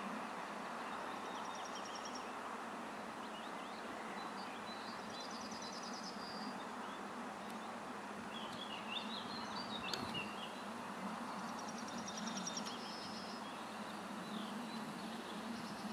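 Steady distant rumble of a freight train running away into the distance. Songbirds trill over it several times, with a brief flurry of chirps about two-thirds of the way through.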